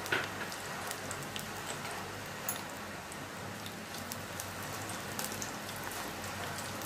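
Green chillies and bay leaves frying in hot oil in a kadhai: a steady sizzle with many small crackling pops, and a sharper pop just after the start.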